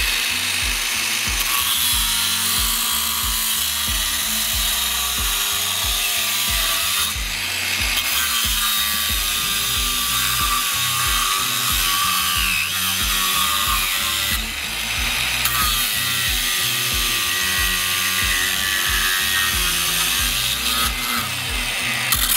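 DEKO DKAG20-125 cordless angle grinder with an abrasive cut-off disc cutting through 8 mm steel rebar: a continuous harsh grinding, with two short lulls about seven and fifteen seconds in between three cuts.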